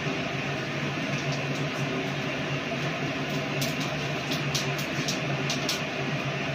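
Whole cumin seeds, a dried red chilli and a bay leaf crackling and spitting in hot oil in a kadai: sharp pops, several a second, start about halfway through. Under them, a steady hiss with a low hum.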